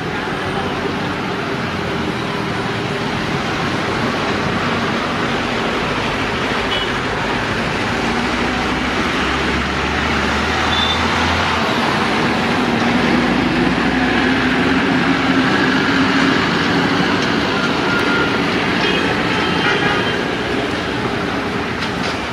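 Diesel locomotive engine running, a steady rumble that grows somewhat louder through the middle and eases slightly near the end.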